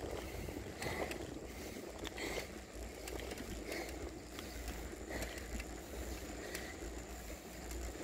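Bicycle coasting downhill on a concrete road: a steady low rumble of wind over the microphone and tyre noise on the rough surface.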